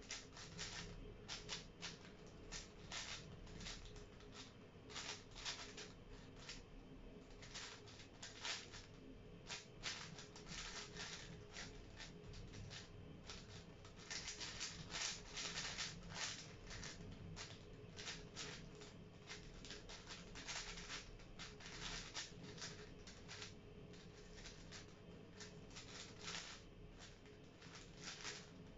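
A 5x5 speedcube being turned rapidly by hand: a fast, irregular run of plastic clicks and clacks from its layers, with a few short pauses. A faint steady hum sits underneath.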